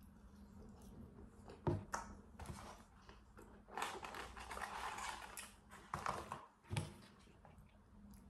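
Eating french fries close to the microphone, then a paperboard fries carton rustling and crinkling for a couple of seconds as it is handled, with a few sharp clicks and taps, the loudest about two seconds in.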